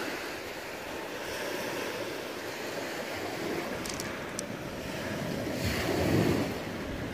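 Waves washing on a pebble beach with wind on the microphone, swelling louder for a moment about six seconds in. A few brief clicks come just after four seconds.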